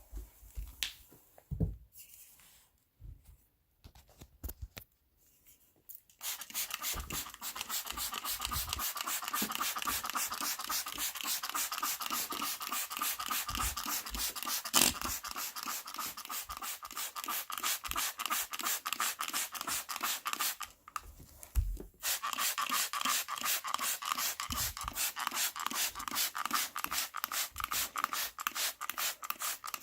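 Carpet being scrubbed by hand with a brush to agitate a sprayed-on stain pre-treatment: a fast, even run of scratchy back-and-forth strokes. It starts after a few soft knocks and a quiet stretch, stops for about a second near two-thirds of the way through, then carries on.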